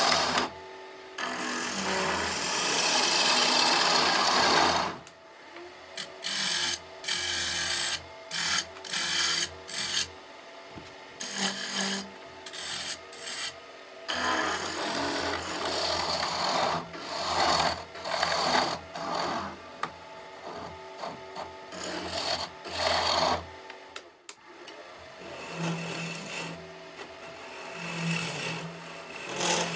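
Gouge cutting into the inside of a spinning locust-wood mortar blank on a lathe, with the hiss of shavings coming off. The cut runs continuously for about the first five seconds, then comes in many short start-stop passes, with the lathe motor's low hum underneath.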